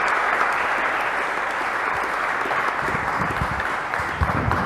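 Audience applauding, a steady spread of clapping that begins to thin out near the end.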